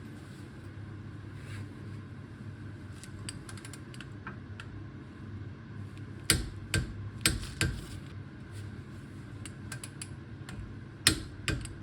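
Metal tools and brake parts being handled: light clicks, then a handful of sharp metallic knocks and clinks about six seconds in and again near the end, over a steady low hum.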